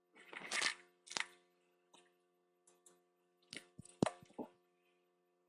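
A steady electrical hum with a handful of short clicks and knocks over it. The sharpest click comes about four seconds in.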